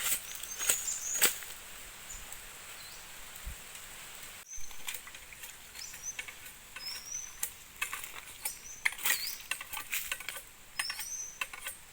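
Irregular sharp clicks and scrapes from hands working rattan, with a few short high bird chirps at intervals.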